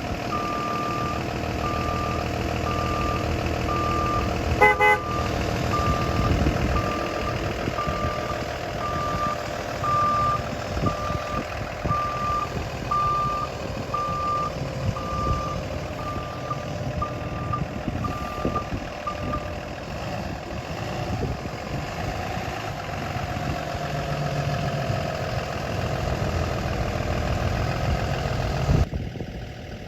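Traffic rumble with a vehicle's reversal alarm beeping steadily at one pitch, about one and a half beeps a second, stopping about two-thirds of the way through. A brief toot sounds about five seconds in.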